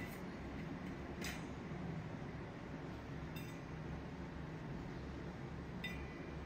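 Four light metallic clinks, each with a brief ringing tone, spaced one to two and a half seconds apart, as a playing kitten knocks against metal. A low steady hum runs underneath.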